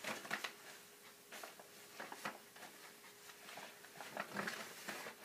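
Carded wool batt being lifted off a drum carder: faint, irregular rustling and scratching as the fibres pull free of the carding cloth.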